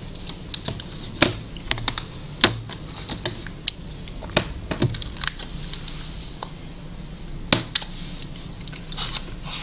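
Irregular light clicks and taps of two small hard ashtrays, one cast in clear epoxy resin, being handled and set down on a tabletop, with a few sharper knocks.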